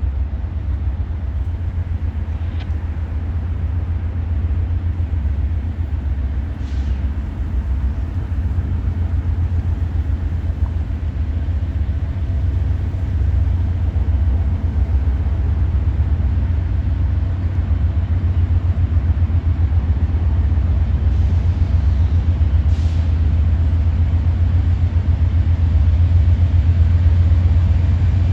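Diesel locomotive engines of a coal train running with a steady deep rumble that grows gradually louder as they throttle up from a stop. A few brief high sounds cut in over it.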